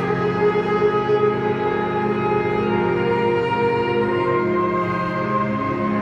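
Marching band playing slow, sustained brass chords that shift every second or so, with no drum strokes.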